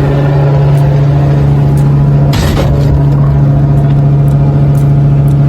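A loud, steady low motor hum with a stack of overtones, broken by a short noisy whoosh about two and a half seconds in.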